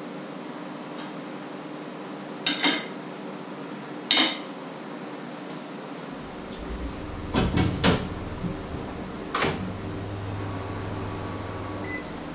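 Kitchen handling sounds: two sharp clinks of plate and cutlery, then a run of knocks and clunks like a cupboard or appliance door opened and shut, followed by a steady low hum lasting about two seconds.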